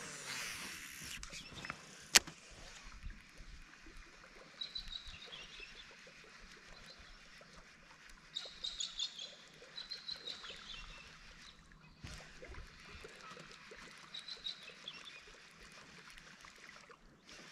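Birds calling in the background: several short flurries of high chirps, over a faint steady hiss. One sharp click about two seconds in is the loudest sound.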